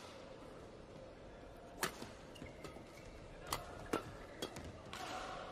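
Badminton rackets striking a shuttlecock during a rally: a single sharp hit near two seconds in, then a quicker run of four hits a little past the middle, with brief squeaks between them over faint arena noise.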